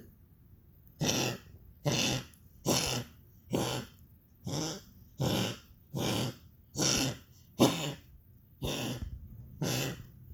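Goliath's harsh coughing fit: about eleven coughs in a row, roughly one a second.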